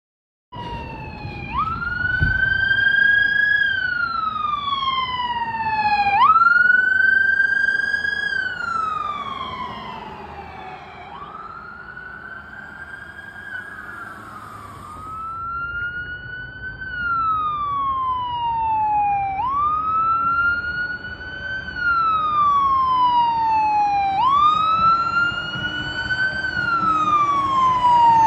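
Fire apparatus siren wailing. Each cycle climbs quickly, then slides slowly down in pitch, repeating about every four to five seconds. It is quieter for a few seconds midway, then loud again.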